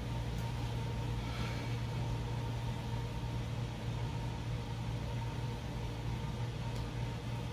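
Room air conditioner running with a steady low hum, faint steady tones riding above it.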